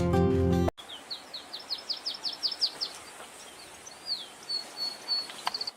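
Guitar-led music cuts off under a second in, then a songbird sings: a fast run of about a dozen high down-slurred notes, then a single slurred note and a few quick repeated high notes near the end.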